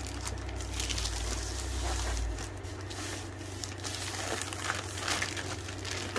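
Thin clear plastic sleeve crinkling in irregular bursts as it is pulled by hand off a rolled diamond-painting canvas.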